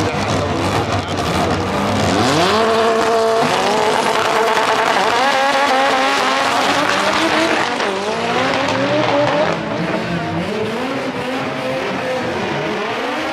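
Two drag-racing cars launching from the starting line and accelerating hard down the strip. The engine pitch climbs and steps down again and again as they shift through the gears.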